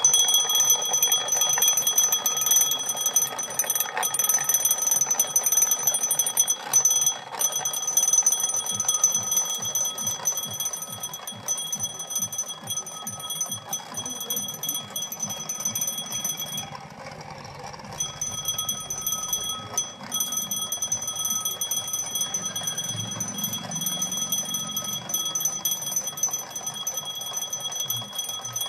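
Twin-bell mechanical alarm clock ringing: its hammer rattles rapidly between the two bells in a continuous metallic ring. The ringing cuts out briefly a little past the middle, then starts again. It is the freshly repaired bell alarm going off at its set time.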